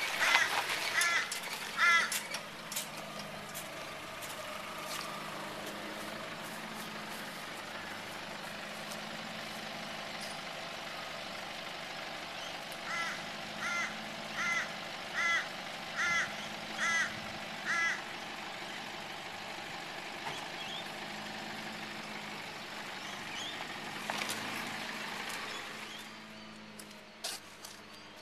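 Crow cawing: three calls near the start, then a run of six about a second apart in the middle, over the steady hum of an idling vehicle engine.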